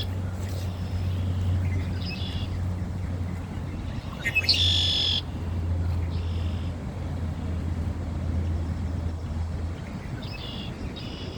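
Songbirds singing in short, separate phrases, the loudest about four and a half seconds in and two more near the end, over a steady low rumble.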